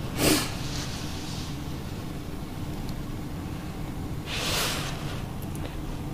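Pot of water heating on a glass-top electric stove, giving a steady low rumble as it nears the boil, with two brief hissing swells, one just after the start and one past the middle.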